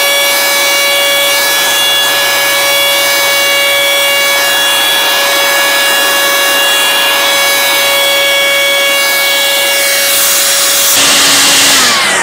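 Kaltmann Titanium 40V brushless cordless leaf blower running at a steady high whine with a rush of air, blowing across a wet car bonnet. The sound is played at double speed, which raises its pitch; near the end it drops back to normal speed and starts to wind down.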